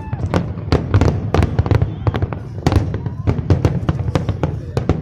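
Fireworks display: rapid, overlapping bangs and crackles, several sharp reports a second, over a steady low rumble.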